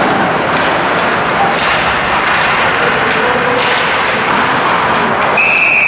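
Ice hockey rink noise: a steady wash of skates scraping the ice, spectators' voices, and sticks and puck knocking. Near the end a referee's whistle starts, one steady high note, as play stops in a scramble at the net.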